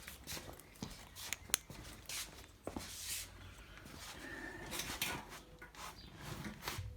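Handling noises in a small workshop: scattered sharp clicks and knocks with bursts of rustling, as a torch and tools are picked up and moved about.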